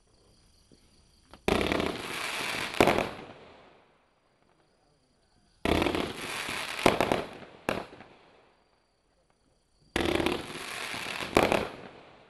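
Brocade Barrage firework cake firing three shots about four seconds apart: each a sudden launch thump and hiss of the rising shell, then a louder bang as it bursts about a second later, fading out.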